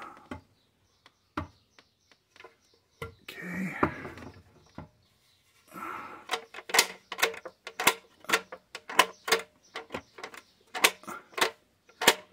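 Sheet-metal fare box tower being handled: a scraping rustle about three seconds in, then a run of sharp metallic clicks and knocks, roughly two a second, through the second half.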